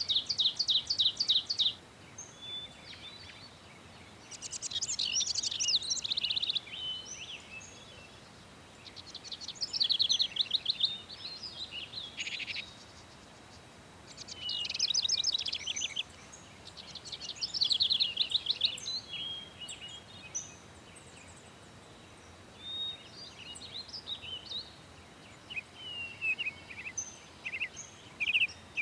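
A songbird singing in rapid trilled phrases, each a second or two long, repeated about every four seconds, with fainter scattered chirps near the end.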